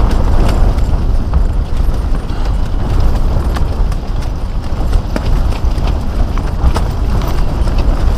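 Storm wind buffeting a dome tent, heard from inside: a loud, low rumble of wind with the tent fabric flapping and snapping irregularly.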